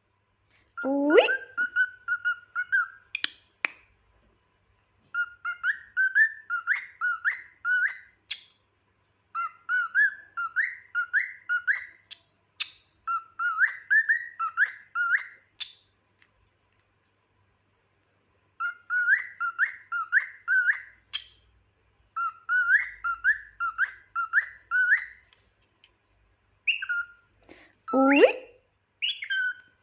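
Cockatiel whistling a short repeated phrase of quick rising notes, in bursts of four or five with pauses between, and a louder, lower call about a second in and again near the end.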